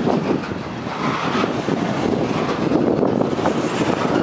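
Freight train cars rolling past at close range: a steady rumble and rattle of steel wheels on the rails, with wind buffeting the microphone.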